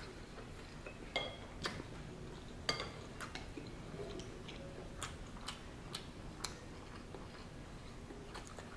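A person chewing a mouthful of ramen noodles, with scattered light clicks of chopsticks and a metal spoon against a ceramic bowl.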